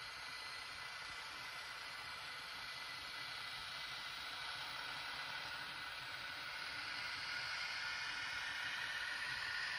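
Z scale model trains running on the track: a steady hiss of tiny electric motors and wheels with a faint high whine that grows louder and rises slightly in pitch over the last few seconds.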